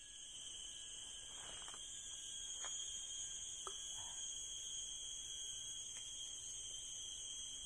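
Insect chorus: a steady, high-pitched drone at several pitches at once, with a few faint ticks in the first half.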